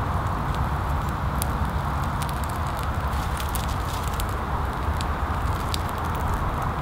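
Birch bark burning with scattered small crackles and pops, over a steady low rumble of distant highway traffic.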